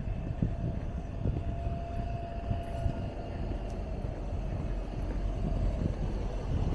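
Low rumble of a vehicle with a faint steady whine running through it, growing slightly louder near the end.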